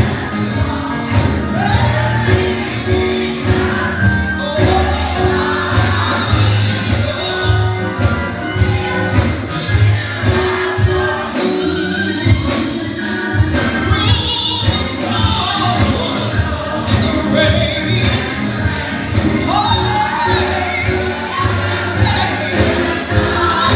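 Gospel choir singing with a band behind it, over a steady beat.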